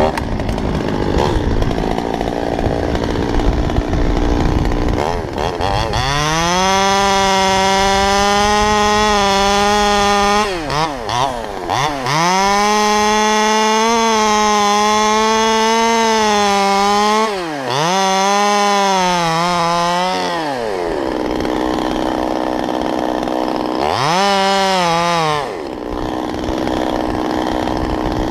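Stihl 200T top-handle two-stroke chainsaw cutting into cottonwood limbs at full throttle. It runs low at first, revs up about six seconds in and holds high with two brief drops, falls back to idle about two-thirds through, blips up once more briefly and returns to idle.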